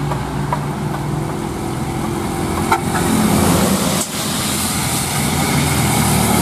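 Heavy diesel trucks, a UD Quester tanker among them, passing close on a rain-soaked road: engines running under the steady hiss of tyres on wet asphalt and falling rain. There is a short click a little under three seconds in. After a brief dip about four seconds in, the hiss grows louder.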